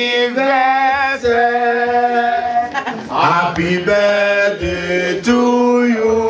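A man singing unaccompanied, a slow chant-like tune held on long notes of about a second each.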